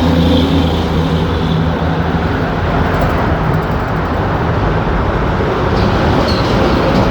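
Loud, steady motor traffic passing close by. A heavy vehicle's low engine hum stands out and fades about four and a half seconds in.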